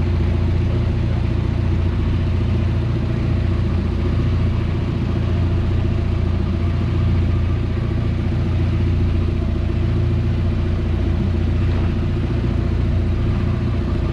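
Long-tail boat engine running steadily under way, a constant deep drone.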